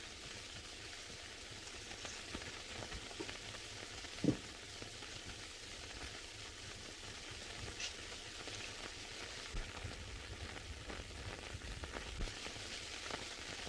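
Steady hiss and crackle of an early sound-film soundtrack, with a few faint knocks of crockery handled on a table, the sharpest about four seconds in.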